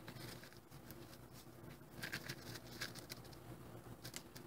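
Faint handling sounds: a paper funnel rustling and rice grains ticking as they are shaken down into a cut-off glove finger, a few scattered small clicks.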